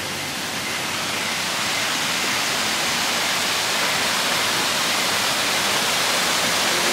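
Man-made waterfall rushing steadily over rockwork, growing slowly louder.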